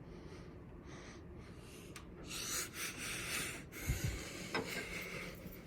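A breathy hiss lasting about a second and a half, like a breath or sniff close to the microphone, followed by a soft low thump.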